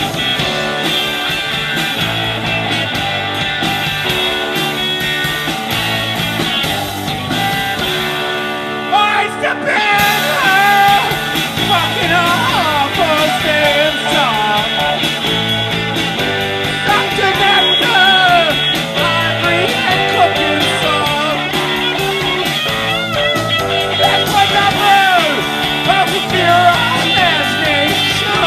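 Live rock band playing a song, with electric guitars, a drum kit and an electric keyboard, and a voice singing over them.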